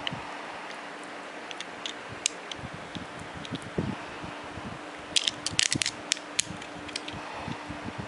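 Small plastic clicks and taps from a Shift Car toy being handled, with a quick run of sharp clicks about five to six and a half seconds in, over a faint steady hum.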